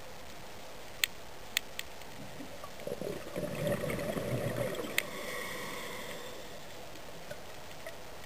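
Underwater ambience heard through a camera underwater: a steady hiss with a few sharp clicks, three in the first two seconds and one about five seconds in. From about three to five seconds in, a rushing, gurgling water noise swells up, then fades off gradually.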